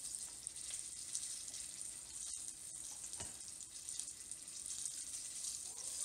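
Breaded, double-dredged trout fillet deep-frying in hot oil in a pot: a steady sizzle with fine crackles and pops, the fillet close to done.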